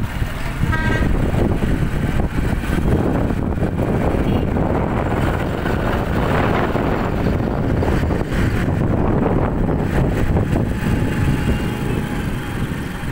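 Street noise from motorcycles and other vehicles running, a steady low rumble, with a brief high tone about a second in.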